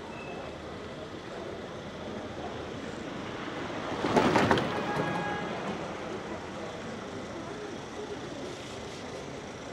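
Street ambience with a vehicle passing close by about four seconds in, its noise swelling sharply and then fading away.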